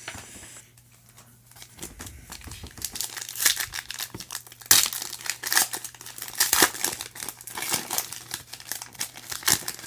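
Foil trading-card pack wrapper being torn open and crumpled in the hands: a dense run of crinkling and crackling that starts about two seconds in, its sharpest crackle about five seconds in.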